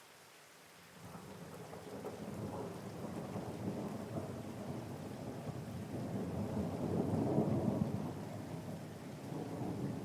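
Steady rain with a long roll of thunder that begins about a second in and rumbles in waves, loudest about seven seconds in.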